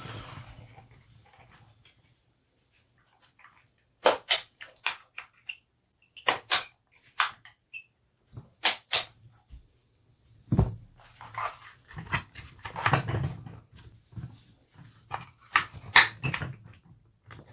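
Sharp metal clicks and knocks of hands and tools working on a Henry Homesteader 9mm carbine's receiver, pushing out the cross pins to swap the magazine well. The clicks come in small clusters, with a heavier knock about ten and a half seconds in and busier clatter after it.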